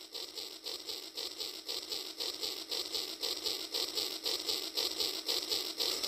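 Rail King toy train running along its track: an even rhythm of quick clicks, about four a second, over a steady hum.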